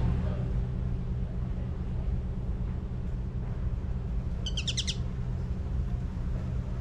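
Black-bellied whistling duck giving a quick run of high, whistled notes about two-thirds of the way through, over a steady low rumble.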